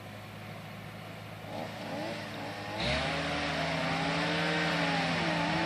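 Engines running at a tree-felling job: a steady drone, then a little under halfway through it gets louder and an engine revving up and down joins over a steady hum.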